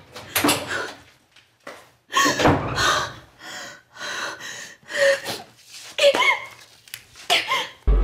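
A woman sobbing and gasping in distress, with short breathy heaves and strained whimpering cries that rise and fall in pitch. Music comes in near the end.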